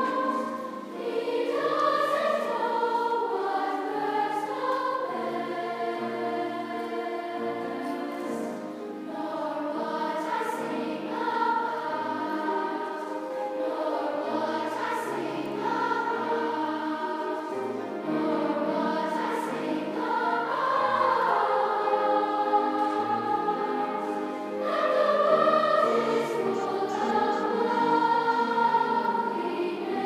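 Large children's choir singing, with piano accompaniment.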